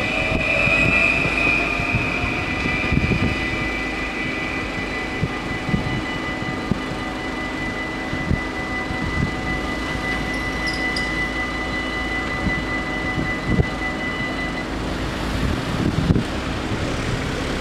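NS Stadler FLIRT electric train running past a level crossing, its motor whine rising in the first two seconds. The crossing's warning bells ring steadily under it and stop shortly before the end, as the barriers lift.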